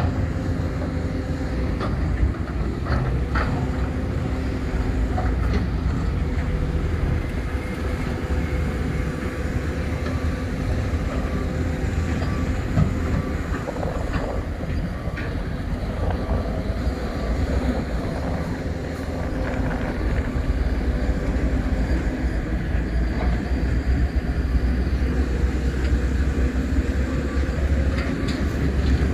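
Heavy diesel engines of mining excavators and dump trucks running steadily with a low drone and a faint steady hum, with a few sharp knocks scattered through.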